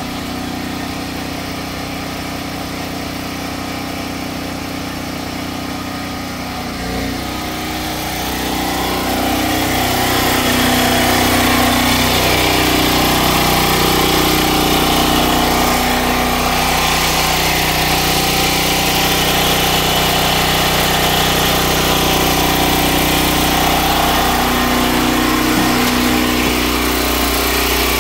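Portable gasoline generator engine running steadily, getting louder from about eight seconds in.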